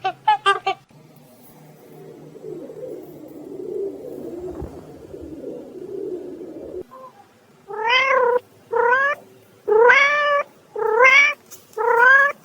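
A domestic cat meowing five times in the second half, each meow about half a second long and rising then levelling in pitch. Before that come a few quick short calls at the very start and a low, rough rumbling noise.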